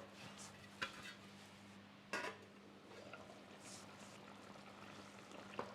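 A few light clinks of a pot lid and cookware, the loudest about two seconds in, over faint bubbling of chicken in tomato pasta sauce simmering and a steady low hum.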